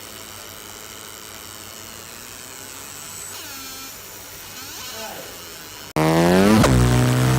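Fiber laser marking machine starting an engraving pass about six seconds in. It gives a loud buzzing whine whose pitch sweeps up and down as the scan head traces the pattern. Before that there is only a faint steady machine hum.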